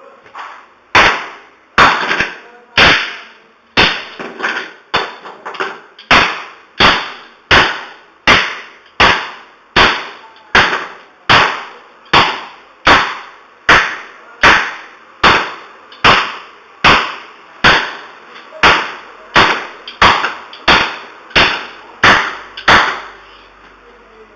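A computer hard drive being struck hard over and over, about thirty sharp blows at a steady pace of roughly one and a third per second.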